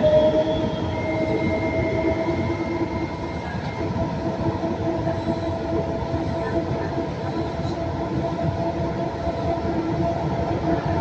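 VAL 208 rubber-tyred automated metro running at speed through a tunnel, heard from inside the car: a steady electric motor whine over a continuous rolling rumble. The whine levels off at the start after climbing as the train gathered speed.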